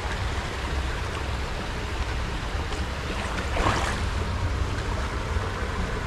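Shallow river water running over rocks, with a steady low rumble of wind on the microphone. A short swish of water about two thirds of the way through as the hand net is worked in the shallows.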